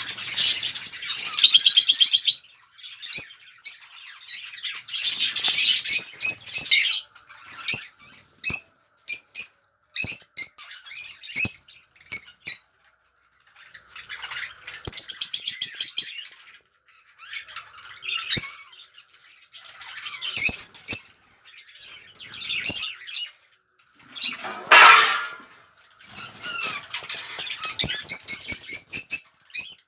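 A flock of budgerigars chirping and chattering in irregular bursts of short, high chirps and warbling calls, with one louder, fuller call a few seconds before the end.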